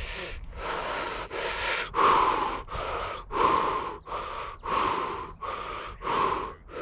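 A man panting hard close to the microphone, about ten quick, even breaths in and out.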